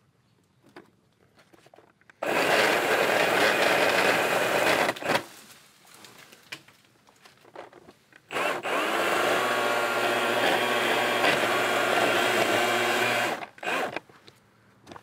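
Cordless pole saw cutting into a tree limb overhead, in two runs of about three and five seconds that start and stop abruptly, with a short blip of the saw near the end.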